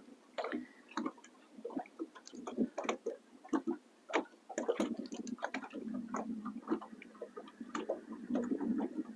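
Small waves lapping against a boat hull, heard as irregular light ticks and splashes.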